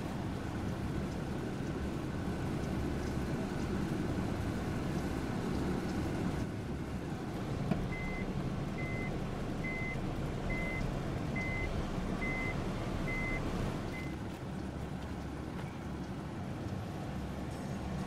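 A vehicle's reversing alarm beeps eight times, evenly at about one beep a second, over a steady low rumble.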